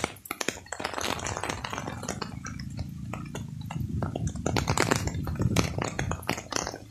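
Rain striking a fabric umbrella overhead: a dense, irregular run of sharp ticks. A low rumble underlies it from about two to six seconds in.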